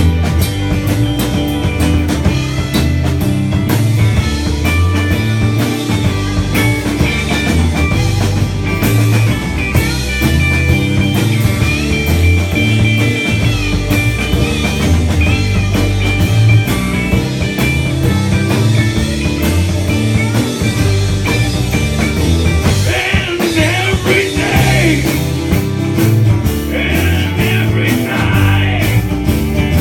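Live band playing a rock-and-roll number: electric guitar, bass guitar and drum kit keeping a steady beat, with a brighter lead part coming in twice near the end.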